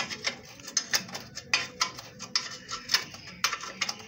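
Irregular sharp metallic clicks and clinks, a few a second, from a spanner working the bolts that hold the mudguard to a rickshaw's front fork.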